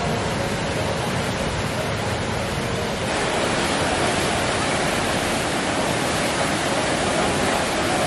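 Rushing white water of a river standing surf wave, a steady, dense roar of churning water, a little louder from about three seconds in.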